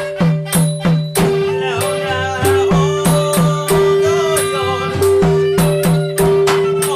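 Traditional-style music: quick, sharp drum and cymbal strikes over a steady held tone, with a wavering melody line joining about two seconds in.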